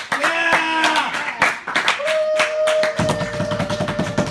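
Hands clapping in a steady rhythm, about three to four claps a second, with a brief cheer early on and a long steady note held over the clapping.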